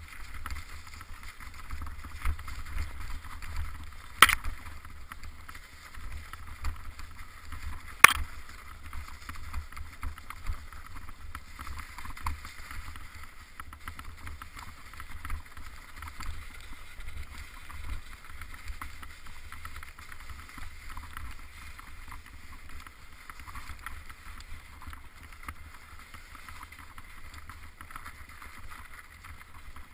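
Steady wind rumble and scuffing noise on a mountain biker's body-worn action camera moving along a snowy trail, with two sharp knocks about four and eight seconds in.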